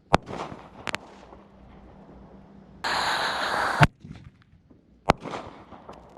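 Miniature 1-inch firework artillery shells going off: four sharp bangs, one of them preceded by about a second of loud hissing, with scattered small crackles after the last.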